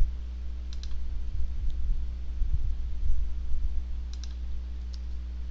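A handful of scattered clicks from a computer keyboard and mouse as text is deleted and selected, some coming in quick pairs, over a steady low electrical hum.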